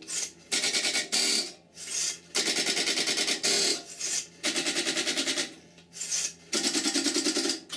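Step-by-step (Strowger) telephone switches clattering in bursts of rapid stepping clicks, about ten a second, with short pauses between runs: the electromechanical selectors stepping as they switch a call.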